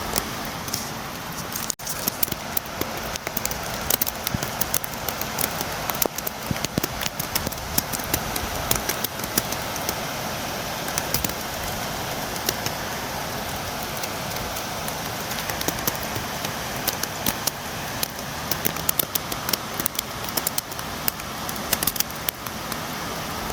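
Steady rain, with many sharp raindrop ticks tapping against a window pane over a constant hiss of falling rain.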